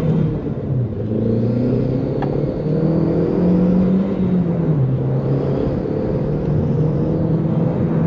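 Audi TT's 1.8-litre 20-valve turbocharged four-cylinder (BAM 225) engine accelerating hard from inside the cabin. Its pitch climbs through a gear, drops at a gear change about four seconds in, climbs again, and drops once more near the end. The hard run sets off the check engine light, which the driver puts down to a misfire under load.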